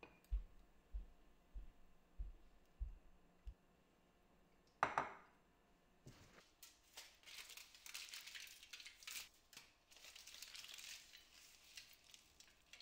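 Aluminium foil being torn and crinkled by hand over the tops of glasses: a rustling crackle from about six seconds in. Just before it, about five seconds in, comes one sharp knock, the loudest sound here, and there are a few soft low thuds at the start.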